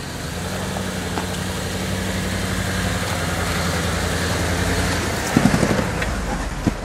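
Lifted Jeep Grand Cherokee's engine running steadily at an even pitch as the Jeep crawls over rocky ground, growing louder as it comes close, with a few sharp bumps about five seconds in and another near the end.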